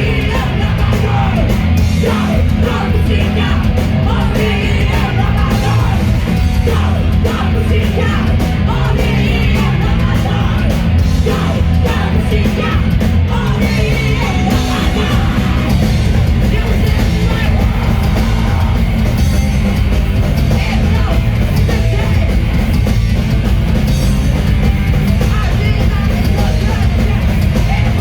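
Loud heavy rock music with yelled vocals over a dense, heavy low end, playing without a break.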